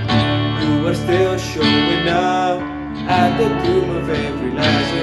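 Band music: a worship song with strummed acoustic guitar to the fore over a full backing.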